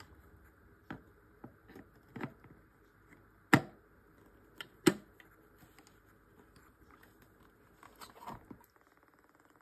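Hard plastic parts of a paintbrush-cleaning water dispenser clicking and knocking as the water bottle is fastened into its housing and set onto the base. There are scattered light taps, two sharper knocks about three and a half and five seconds in, and a few small clicks near the end.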